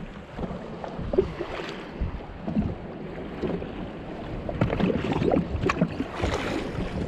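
Water lapping and slapping against a jet ski's hull, with a few light knocks scattered through.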